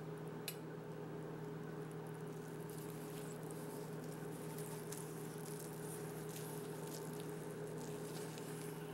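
Carving knife slicing through a rare roast beef on a wooden cutting board: faint wet squishing and light clicks, with one sharper click about half a second in, over a steady low hum.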